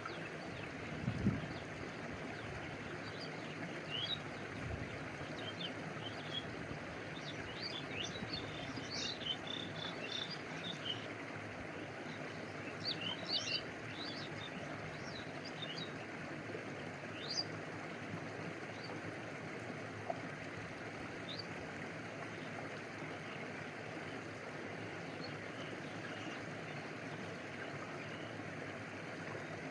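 Small stream flowing steadily, with birds chirping in short, scattered high notes over it, thickest in the first half and sparse later on.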